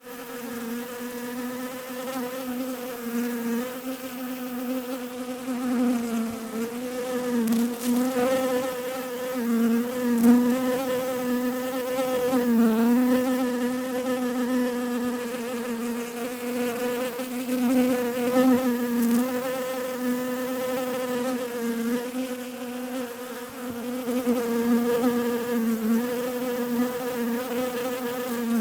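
Bees buzzing: a continuous hum whose pitch wavers slightly up and down.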